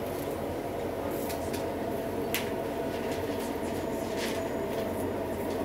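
Kebab skewers grilling over charcoal, with a few sharp crackles over a steady low rumble of background noise.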